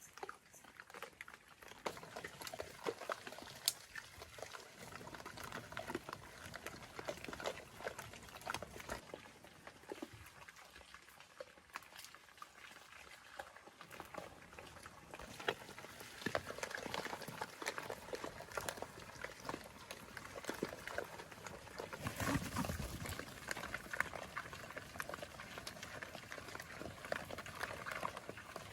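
Pigs eating and rooting: a dense, irregular run of crackling, chewing and rustling noises, with a brief low rumble about two-thirds of the way through.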